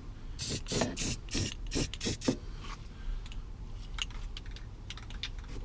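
Aerosol can of primer sprayed in a quick series of short bursts, about seven in two seconds, followed by a few faint clicks.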